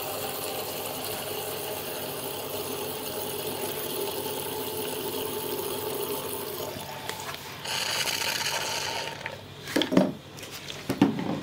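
96% alcohol pouring in a thin, steady stream from a plastic bottle into a glass jar partly filled with liquid, trickling and splashing. About eight seconds in a brighter hiss of liquid comes for a second or so, then a few sharp knocks near the end as the bottle and jar are handled.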